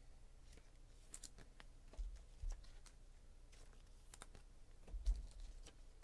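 Faint clicking of a computer keyboard being typed on, with a soft low thump about two seconds in, another half a second later, and a third near the end.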